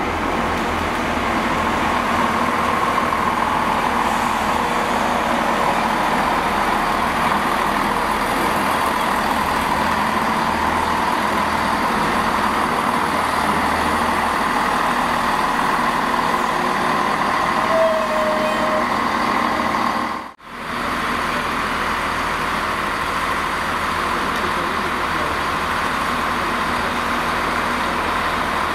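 A CrossCountry Class 170 Turbostar diesel multiple unit runs through the station, its underfloor diesel engines and wheels on the rails making a steady drone. The sound drops out for a moment about two-thirds through, and then a Class 66 diesel-electric freight locomotive approaches at the head of a train of wagons, its engine running.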